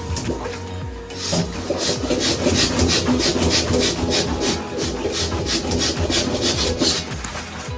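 Fast back-and-forth rasping strokes, about three or four a second, like hand rubbing or filing. They start about a second and a half in and stop near the end.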